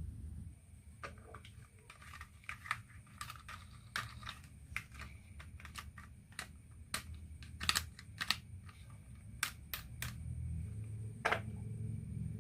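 Marbles rolling down a wooden marble run: a steady low rumble of rolling, with many irregular sharp clicks as they strike the track pieces and one another.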